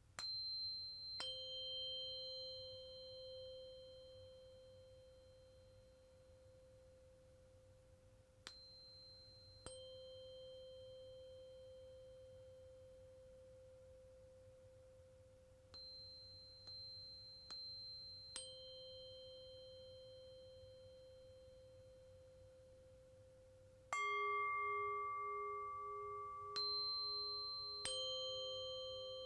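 Tuning forks struck one after another, about nine times, often in pairs, each ringing a clear pure tone that slowly fades and overlaps the last. Near the end a Tibetan singing bowl is struck, its low tone wobbling as it rings on under the forks.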